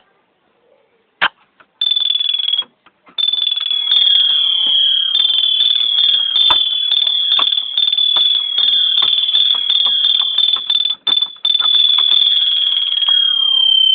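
Typewriter-style ringtone: rapid typewriter-like clacks under a high, piercing ringing tone that keeps breaking off briefly and sags slightly in pitch near the end.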